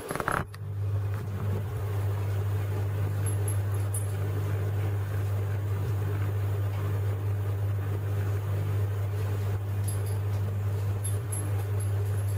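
Steady low hum of running aquarium equipment, such as an air pump or filter. A brief knock comes about half a second in.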